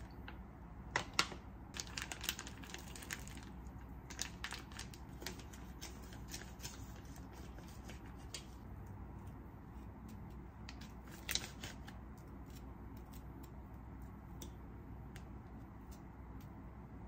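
Light clicks and soft crinkling of plastic food pouches being handled while toppings are placed into a bowl of cold soba with chopsticks. The clicks are thickest in the first few seconds, with another cluster about eleven seconds in, over a low steady hum.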